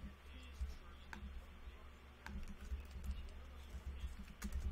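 A few irregular key clicks on a computer keyboard, roughly a second apart, over a faint low rumble.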